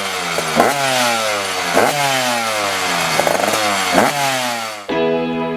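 Motorcycle engine revved hard about three times, each rev climbing quickly and then falling away slowly. It cuts off abruptly near the end as music comes in.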